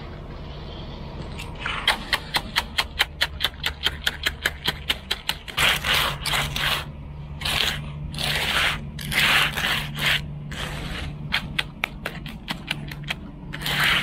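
Steel hand edger scraping along the edge of fresh, stiff concrete against the form. From about two seconds in come rapid short back-and-forth strokes, several a second, then longer sliding strokes, with a steady low hum underneath.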